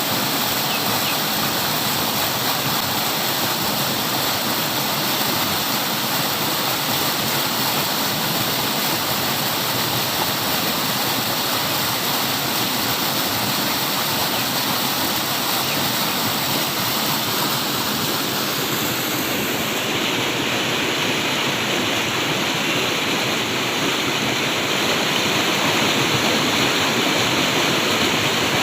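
Flowing water rushing steadily, like a stream or small waterfall, with a shift in its tone about twenty seconds in and a little louder near the end.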